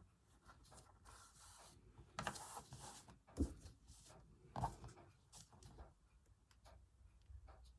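Faint sounds of hand embroidery: fabric rustling and thread being drawn through cloth, with two soft knocks about three and a half seconds in and again a second later.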